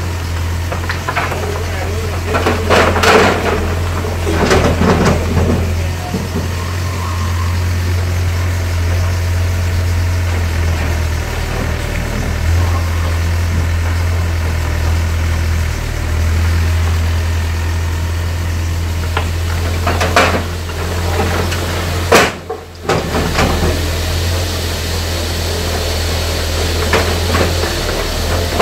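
Volvo EW60C wheeled excavator's diesel engine running steadily with a low hum, broken several times by loud clattering knocks of demolition work, a few seconds in and again near the end.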